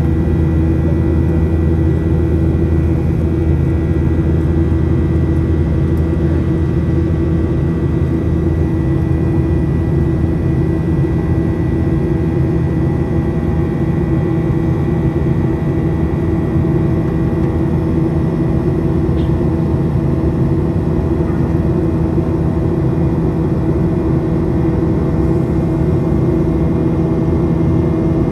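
Steady jet-engine drone inside the cabin of a Boeing 737 in flight: a low rumble with a constant hum of engine tones from its CFM56-7B turbofans.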